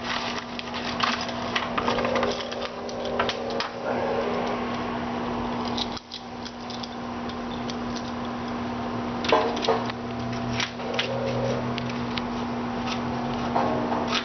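Clicks, taps and scraping as a new replacement roller is worked and maneuvered into the bottom rail of an Arcadia sliding glass door, over a steady hum.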